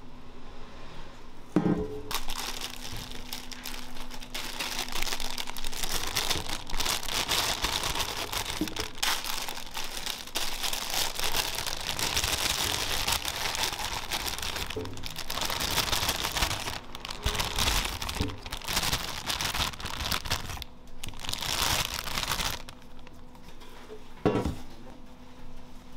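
Plastic bag crinkling and rustling as burger buns are emptied from it into a stainless steel pan, with a sharp metal knock of the pan on the counter about two seconds in and again near the end.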